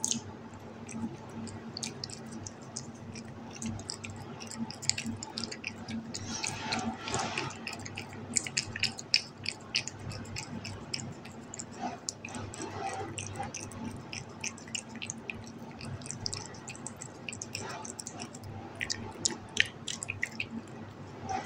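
A kitten chewing and licking soft mango chunks from a hand: a run of small, irregular wet clicks and smacks over a steady low hum.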